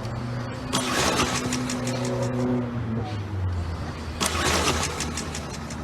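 Small petrol lawn mower engine being pull-started and running. Its steady hum drops in pitch about three seconds in, with rasping pull-start bursts about a second in and again past four seconds.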